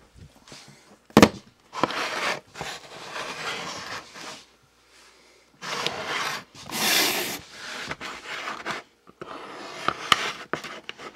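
Hands handling things close to the microphone: a sharp knock about a second in, then repeated stretches of rubbing and scraping.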